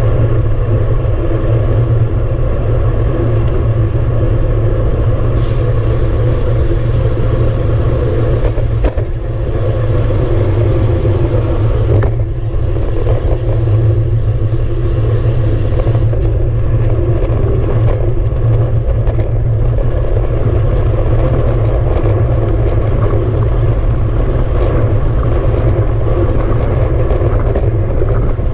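Wind rushing over a handlebar-mounted camera's microphone and tyre rumble as a road bike rolls along a paved road. The noise is loud and steady, with a brighter hiss joining for about ten seconds in the middle.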